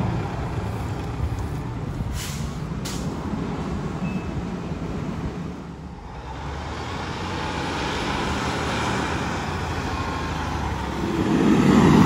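Diesel fire engines running on the road: one engine's sound fades away as it moves off, then another fire engine comes up, growing loud about a second before the end.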